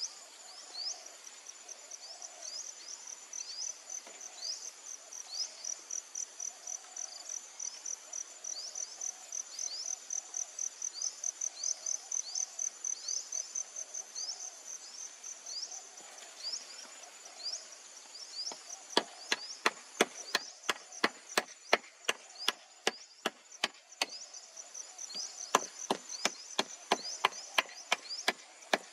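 Insects call in a rapid high pulsing trill, with short high rising chirps repeating. About two-thirds of the way in, a run of sharp chopping strikes on wood starts, roughly two a second, and these are the loudest sounds.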